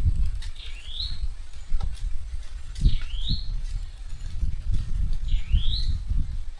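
A bird calling repeatedly, each call a short whistle that dips and then rises sharply, about every two seconds. Under it runs an uneven low rumble with thumps, louder than the calls.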